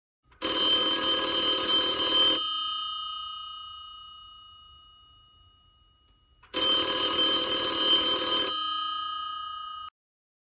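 Telephone bell ringing twice, each ring lasting about two seconds with a gap of about four seconds between them. The bell tones ring on and fade after each ring, and the fade after the second ring is cut off abruptly near the end.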